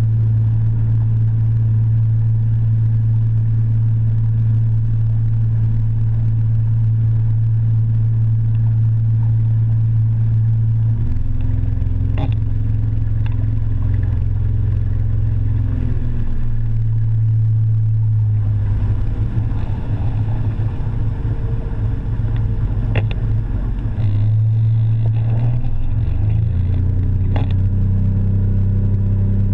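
Motorboat engine running under way with a steady drone. The engine note shifts a few times as the throttle changes and turns rougher for a stretch in the middle, with a few sharp knocks.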